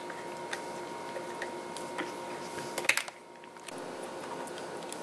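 Scattered light clicks and taps from small screws, a screwdriver and metal screen brackets being handled on a laptop lid, over a steady background hum. A short cluster of louder clicks comes about three seconds in.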